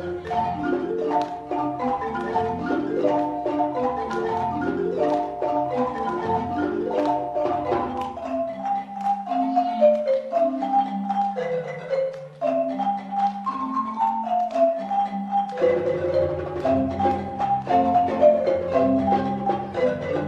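Marimba ensemble of several wooden marimbas playing a rhythmic piece together. The low bass notes drop out a little before halfway, leaving only the higher marimbas, and come back in about three-quarters of the way through.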